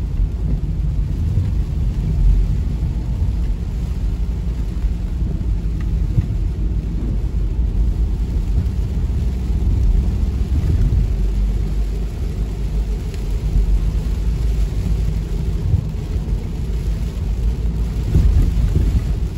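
Car driving in heavy rain, heard from inside the cabin: a steady low road and engine rumble with the hiss of rain over it.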